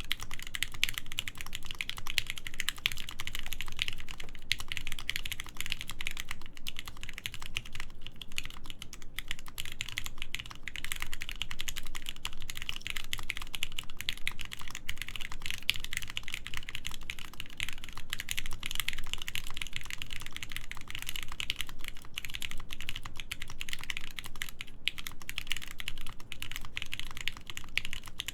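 Continuous fast typing on a mechanical keyboard with lubed Gateron Mizu switches, PBT keycaps and a full aluminium plate: a dense run of clacky keystrokes with brief pauses now and then.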